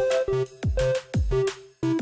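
Electronic background music with a steady beat: a deep kick drum about twice a second under short synth notes.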